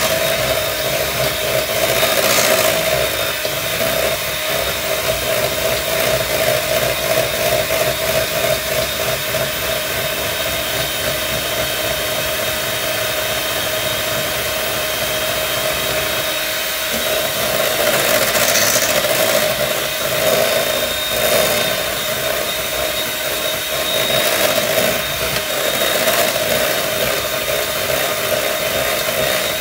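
Electric hand mixer running steadily with a constant motor whine, its beaters creaming a thick cream cheese, sugar and egg mixture in a stainless steel bowl.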